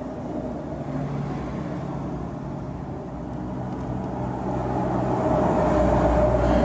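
Motor vehicle running, a steady hum with low rumble that grows louder toward the end.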